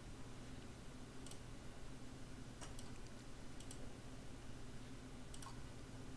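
A handful of faint computer mouse clicks, some in quick pairs, as sketch profiles are selected one after another, over a low steady hum.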